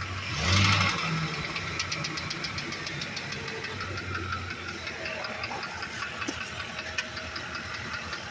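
Ford E350's 5.4-litre V8 revved by a short press of the throttle about half a second in, then settling back to idle with a fast, even ticking. It is the unexplained engine noise the owner is chasing, which he says is heard only with a little throttle and stays the same with the transmission removed.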